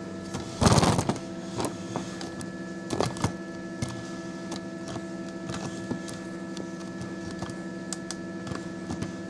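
A plastic dome egg incubator (Nurture Right 360) being handled and slid out from under a wire shelf. About half a second in there is a loud half-second scrape, then a few knocks and light clicks, over a steady electrical hum.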